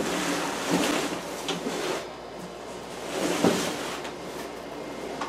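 Plastic packing sheet rustling and crinkling, with a few knocks and scrapes of the keyboard's casing against its cardboard box as a Yamaha DGX-660 digital piano is lifted out. The handling is loudest in the first two seconds and again about three and a half seconds in.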